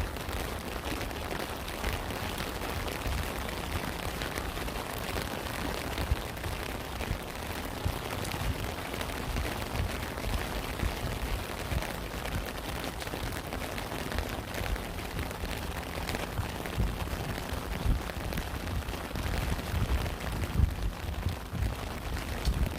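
Steady rain: a dense, even hiss of falling drops with many small ticks and a few louder single drop hits standing out.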